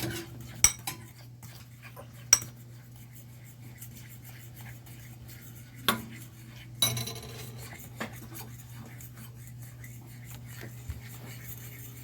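A utensil clinking and scraping against a pan as pasta is stirred into a raw egg-and-Parmesan carbonara mixture. A few sharp knocks are spread through it over a steady low hum.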